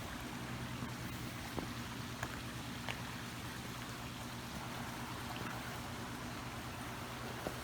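Car engine running with a steady low hum under even road noise as the car moves slowly along, with a few faint ticks.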